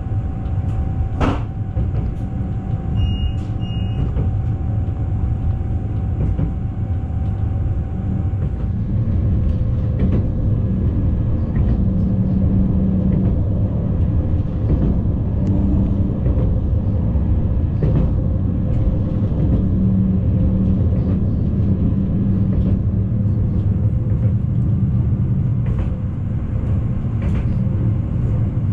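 Newag Impuls 2 electric multiple unit running, heard from inside the carriage: a steady low rumble of the wheels on the rails with a constant whine that drops in pitch about nine seconds in, and occasional clicks. Two short beeps sound about three seconds in.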